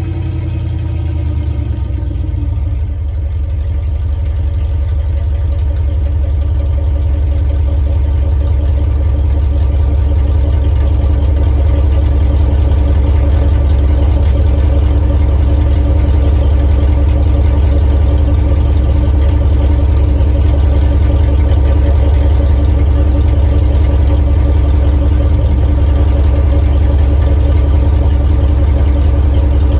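2000 Dodge Durango engine idling through a muffler-deleted exhaust with only a gutted catalytic converter, a loud low drone after a cold start. Its pitch drops in the first couple of seconds, then holds steady.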